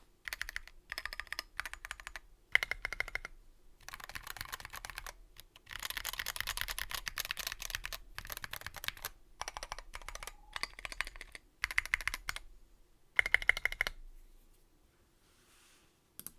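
Typing in bursts on a Revo One 60% mechanical keyboard with lubed Tealio linear switches, SA-profile keycaps and a sound-dampened case. The typing stops about 14 seconds in, and one last keystroke comes near the end.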